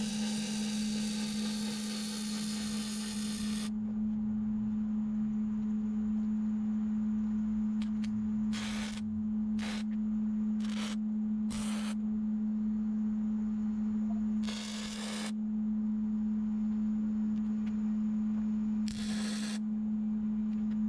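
Welding on steel: a few seconds of continuous weld that stops abruptly, then a string of short tack welds, each under a second, over a steady electrical hum.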